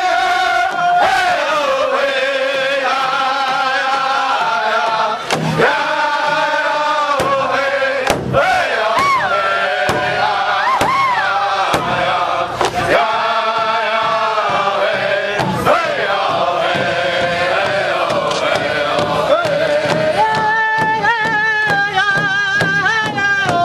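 Native American drum group singing an honor song in chorus, men's voices together over strikes on a large hide powwow drum.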